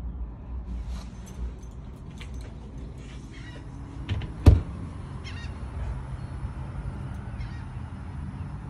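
A steady low rumble with scattered light clicks, and one sharp knock about halfway through that is the loudest sound.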